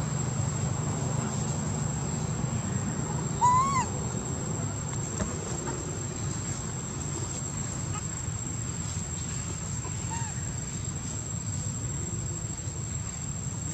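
A young macaque gives one short, arching squeak about three and a half seconds in, and a fainter one near ten seconds, over a steady low outdoor rumble and a thin steady high whine.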